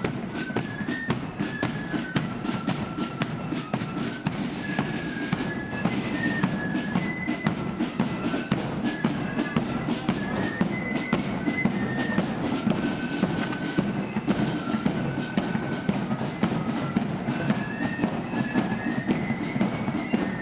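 Marching flute band playing a march: flutes carry a stepping melody over steady snare drumming and bass drum beats.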